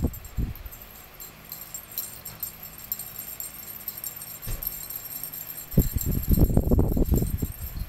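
A small bell jingling in light, scattered shakes while cat teaser toys are waved. About six seconds in comes a louder burst of low thumps and rustling.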